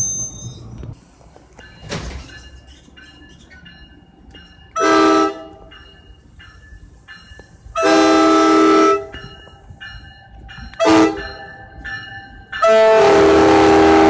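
NJ Transit train's air horn sounding four blasts of a several-note chord: a medium one about five seconds in, a long one, a brief one, then a long one near the end. Between the blasts a grade-crossing warning bell keeps dinging, and a passing train rumbles at the start.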